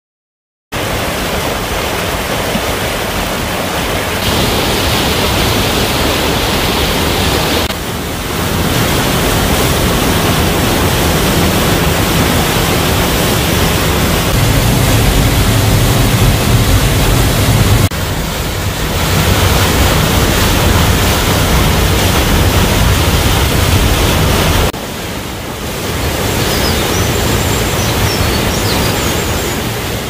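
Waterfall plunging into a rocky pool: loud, steady rushing water that starts about a second in, its level and tone shifting a few times.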